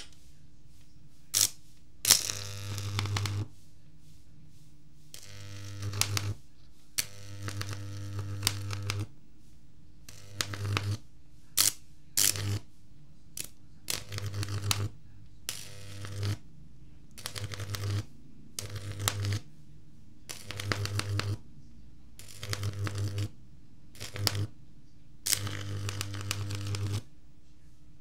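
High-voltage arc from a microwave oven transformer, drawn off a leaf with a probe and struck over and over: more than a dozen buzzing, crackling arcs of half a second to two seconds each, with a few single sharp snaps. A faint steady transformer hum runs between the arcs.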